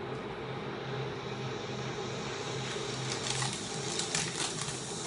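Steady low hum in the room, with crinkling and rustling of a trading-card pack and cards being handled starting about three seconds in.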